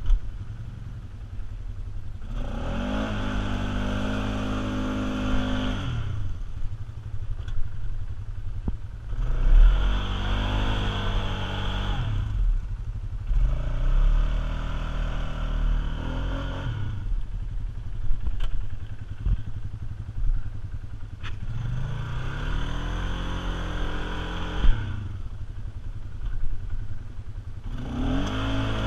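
Polaris Sportsman ATV engine revved up hard and held, then let off, about five times over, as the quad pulls through deep mud.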